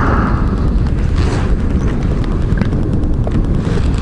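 Strong wind buffeting the microphone: a loud, rough, low rumble, cut off abruptly at the very end.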